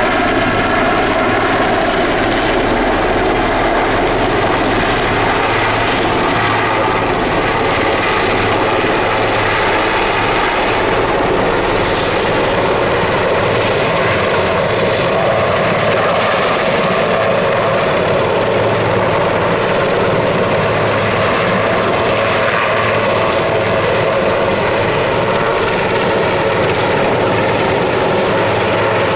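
A large helicopter carrying a bucket on a long line, flying low and hovering overhead. Its rotor and turbine noise is loud and steady throughout.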